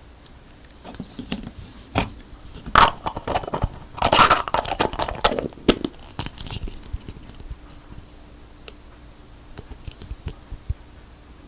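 Crinkly plastic or tape being torn and crumpled by hand, in two dense bursts with scattered small clicks around them.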